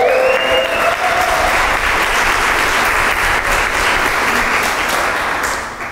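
Audience applauding, steady and dense, tapering off near the end.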